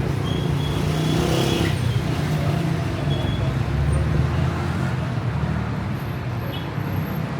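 City street traffic: car engines and tyres in a steady low rumble, a little louder about a second or two in, with a few faint brief high tones over it.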